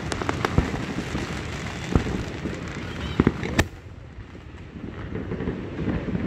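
Fireworks going off: a quick run of crackling pops in the first second, a sharp bang about two seconds in and a cluster of bangs around three and a half seconds, after which it goes quieter.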